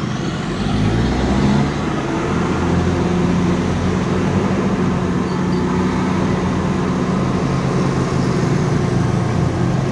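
Diesel engine of a light truck loaded with logs, running steadily as it climbs a narrow road, heard from close behind. Its pitch rises a little over the first two seconds and then holds.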